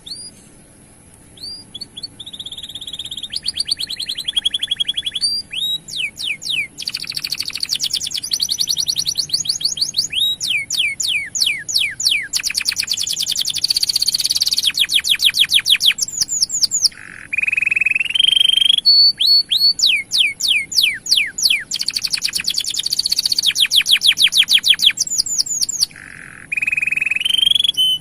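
Male canary singing a long, continuous song: fast trills and rolls of rapidly repeated high notes, with rising sweeps and a few brief breaks.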